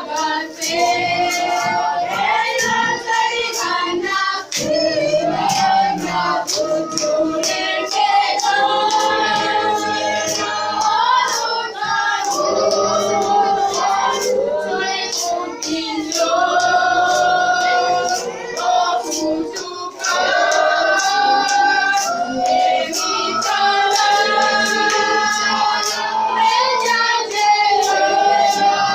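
A group of voices singing a church song together over musical accompaniment with a steady beat.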